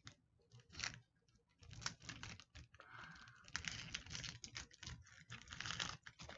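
Plastic candy wrapper crinkling and crackling as it is worked open by hand: a run of irregular crackles that thickens about halfway through.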